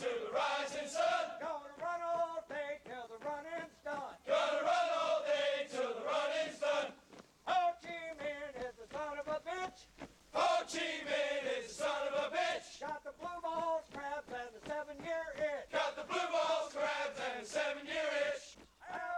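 A military marching cadence chanted call-and-response: a single male voice calls each line and a group of men shouts it back in unison, in alternating phrases of a few seconds each.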